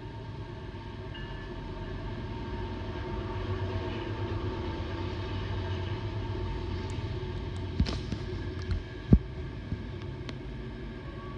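Diesel locomotives of a BNSF freight train passing, a low rhythmic engine throb that swells over the first several seconds. Two sharp knocks come about eight and nine seconds in, the second the loudest.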